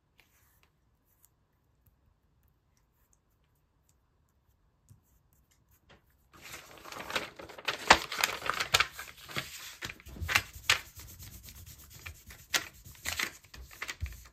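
Near silence for about six seconds, then glossy magazine paper being handled: rustling and rubbing with many sharp crackles.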